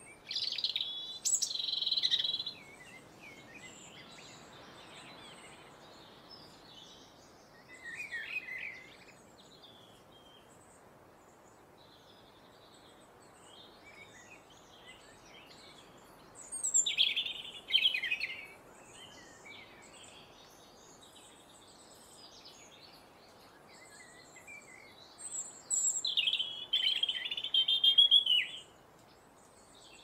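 European robin singing: four short phrases of fast, high warbling notes separated by long pauses, the last phrase the loudest and longest. Faint high notes continue in the gaps over a steady background hiss.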